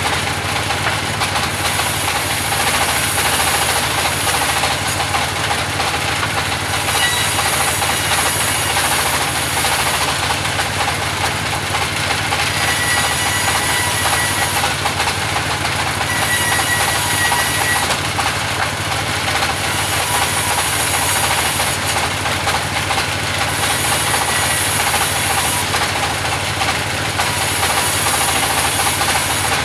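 Band sawmill running steadily while sawing timber into pallet boards: a continuous loud machine noise with a low hum, and a higher hiss that comes and goes every few seconds.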